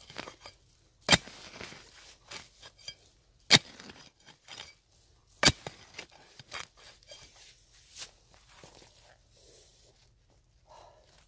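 A small pick-mattock striking into the ground among dry grass: three sharp blows about two seconds apart and a lighter one later, with scraping and crackling of soil and dry stalks in between that thin out near the end.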